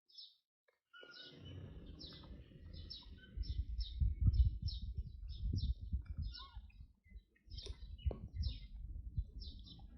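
Small birds chirping: short high chirps repeated about two or three times a second, over a low rumble with a few sharp knocks. Starts about a second in after a brief silence.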